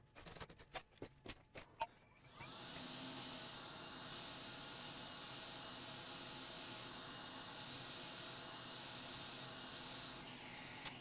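A few light clicks, then a hot air rework station blowing a steady hiss onto a QFN power IC (NCP81215D) to melt its solder and lift it off a laptop motherboard.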